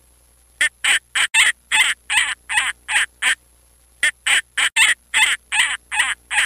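A duck quacking in a rapid series of short, harsh quacks, about three a second, with a brief pause midway.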